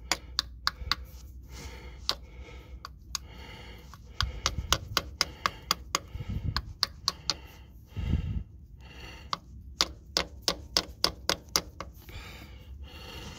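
Small claw hammer tapping a new axle seal into a 2008 Pontiac Montana's transaxle housing: dozens of light, sharp taps in irregular runs, about two or three a second, working the seal in straight and flat without a seal driver.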